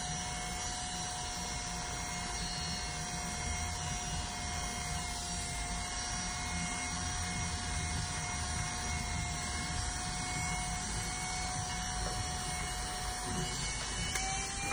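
Electric hair clippers running with a steady, even hum as they cut a boy's hair.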